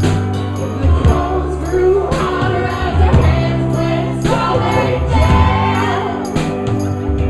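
Live band playing amplified electric guitar, with a woman and a man singing together over held low notes.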